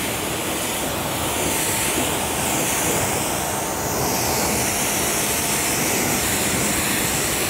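Hose spray nozzle spraying deionized water over a car's body panels in a steady hiss, the final rinse after a wash.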